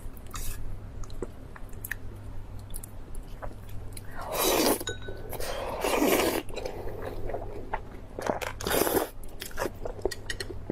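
Close-miked eating sounds: chewing and crunching with small wet clicks, and three louder crunching bursts about four and a half, six and nine seconds in.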